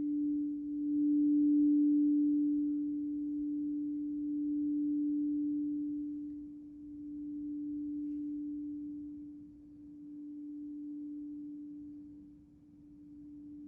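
Crystal singing bowl ringing with one sustained low tone that slowly rises and falls in loudness every few seconds and gradually fades.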